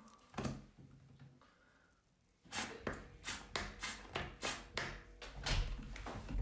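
Handling noise from a phone held in the hand: a single click about half a second in, then from about halfway a quick run of short knocks and rubbing clicks, roughly three a second.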